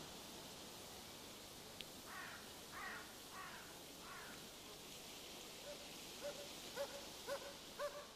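Faint animal calls in a quiet forest: four short higher calls about two seconds in, then a quicker run of short calls rising in pitch, about two a second, near the end.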